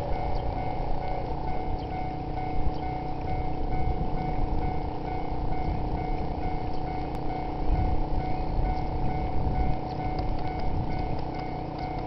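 Japanese level-crossing alarm ringing its electronic bell in a steady repeating ding, over a continuous low rumble.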